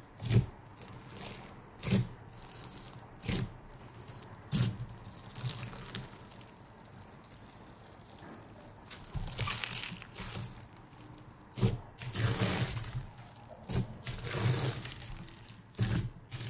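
Hands squishing and stretching a wet, bead-filled slushee slime: sticky squelches and crackles. Sharp pops come about every second and a half in the first few seconds, and longer crackling stretches follow later.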